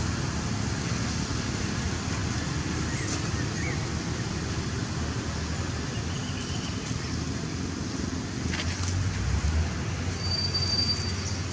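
Steady outdoor background noise, an even hiss with a faint low hum, broken by a few faint, brief high chirps, the clearest near the end.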